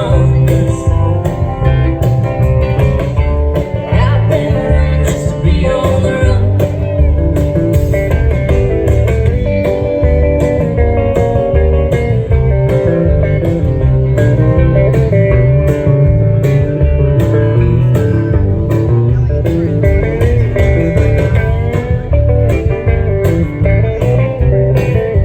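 Live band playing a country song: guitar out front over a steady bass and beat, seemingly an instrumental break with little or no singing.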